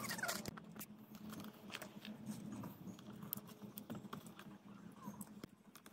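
Faint scattered clicks and taps of plastic as the twist-in bulb holders are handled and turned out of the back of a Toyota Yaris instrument cluster to check the bulbs.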